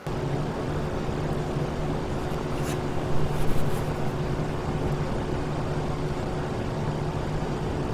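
Steady vehicle running noise with a low, even hum under it, and a few brief louder knocks about three seconds in.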